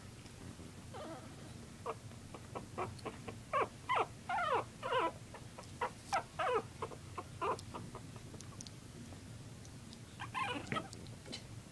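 Three-week-old puppies yelping and squeaking as they play-fight: a string of short, high, falling cries, thickest in the middle, with a few more near the end.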